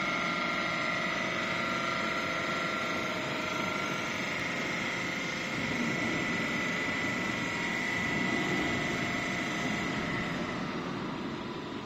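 Hydraulic pump running with a steady whine while it drives the cylinders of a 36-inch hydraulic sandwich valve through a function test, moving the gate. The sound grows slightly quieter near the end.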